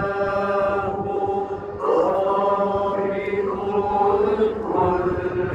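Voices singing a slow religious chant in long held notes, a low note sustained beneath a moving melody. The singing grows louder about two seconds in.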